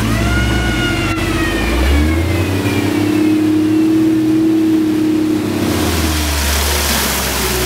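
Old flat-fender military Jeep's engine revving as it pulls through deep mud. The engine note holds steady for a few seconds, then drops away near the end into a rougher, noisier engine sound. There is a short click about a second in.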